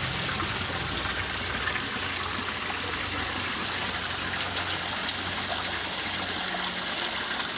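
Steady splashing of water pouring into a fish pond from the pond pump's outlet, with a faint low steady hum. The pump seems to be running a little poorly, which the owner puts down to it needing cleaning.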